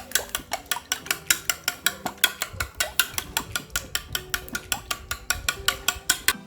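Eggs being beaten in a bowl: a utensil clinking rapidly and evenly against the bowl, about six or seven strokes a second, stopping near the end.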